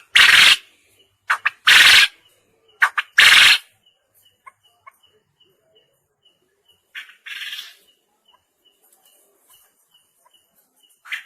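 Quail crowing: three loud, harsh calls about a second and a half apart, each a short note followed by a longer one, then a fainter call about seven seconds in and another near the end. A faint, regular high tick repeats about three times a second underneath.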